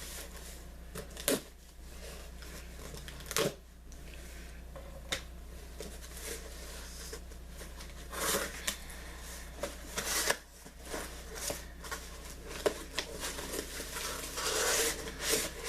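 A small cardboard box being opened and its packing handled: scattered sharp taps and knocks with short bursts of rustling and tearing cardboard and paper.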